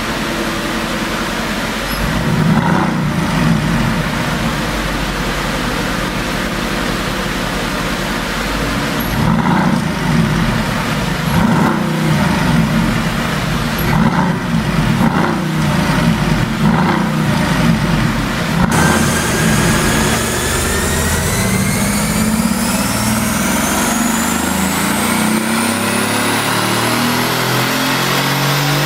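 Mercedes-AMG GT S twin-turbo V8 running on a chassis dyno, with a string of sharp exhaust pops from its pop-sound tune through the first part. From about two-thirds of the way in it pulls with a smooth, steadily rising rev.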